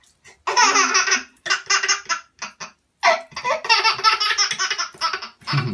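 A baby laughing in two long bouts of quick, repeated high laughs, the second beginning about halfway through.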